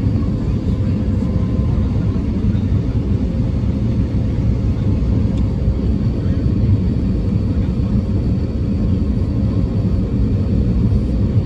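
Steady low rumble inside the cabin of an Airbus A350-900, from its Rolls-Royce Trent XWB engines and the rush of air along the fuselage, heard at a window seat beside the engine.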